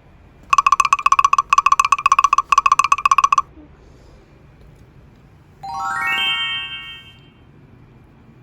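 Electronic sound effects: a trilling ring in three short bursts, then a quick rising run of chime notes that ring on briefly.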